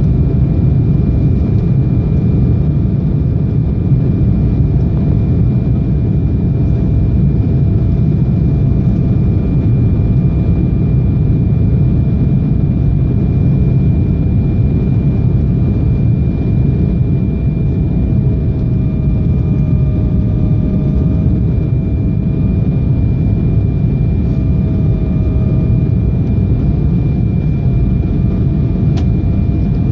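Cabin noise of an Embraer 195 on approach, heard from a window seat by the wing: the steady deep roar of its General Electric CF34 turbofans and the airflow, with thin high whines on top. The lowest whine dips slightly in pitch a little past the middle, then recovers.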